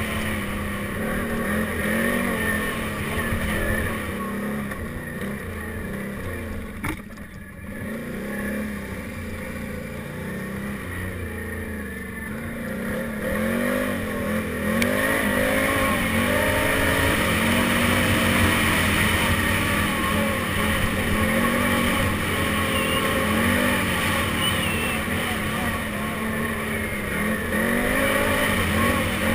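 Can-Am Renegade 800 XXC ATV's V-twin engine under way off-road, its revs rising and falling over and over as the throttle is worked. The engine drops off briefly with a sharp click about seven seconds in, and runs louder through the second half.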